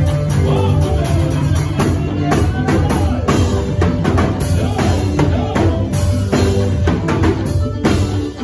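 Live band music: a drum kit playing a steady beat over a bass line and guitar.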